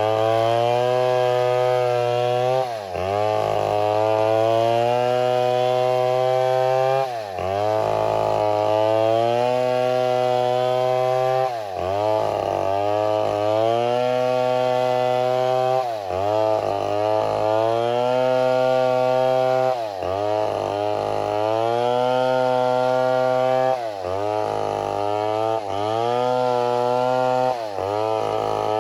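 Chainsaw running at high revs, its engine speed dipping briefly and recovering about every four seconds.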